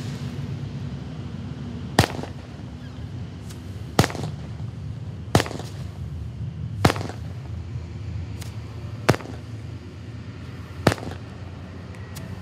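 Black Cat 'Garden in Spring' firework cake firing its shots one after another. There are six sharp bangs, about one every one and a half to two seconds, with fainter pops between them, over a steady low hum.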